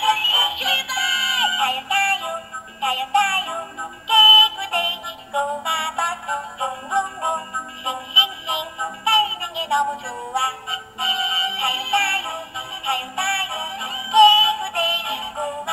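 Music with a synthetic-sounding sung melody over a steady bass line.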